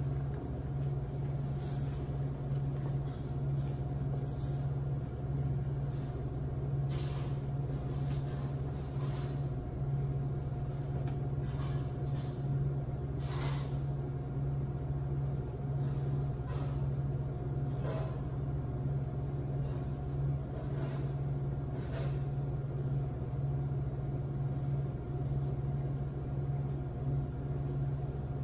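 Steady low machine hum with a faint, steady higher tone above it, and a few faint clicks scattered through it.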